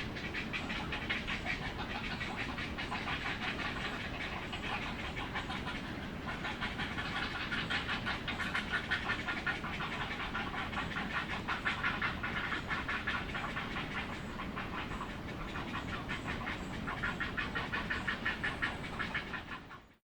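Heron calling: a continuous fast, rattling chatter of rapid pulses that swells and eases at times.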